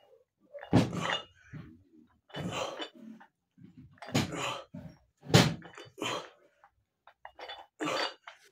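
A man's forceful, noisy exhalations and grunts with each dumbbell lift, about six of them, roughly one every second and a half. A few light clicks of the metal dumbbells come near the end.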